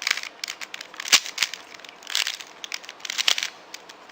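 Plastic 3x3 Rubik's Cube being turned by hand: a quick run of clicks and clacks as the layers are twisted, with a few sharper snaps about a second in.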